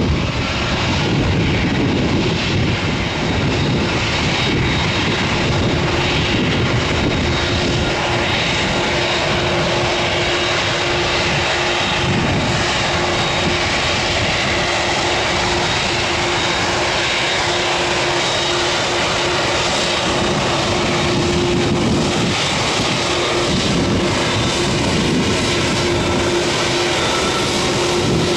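Airliner engines running loudly and steadily as a dense rushing noise, with a steady hum joining about six seconds in.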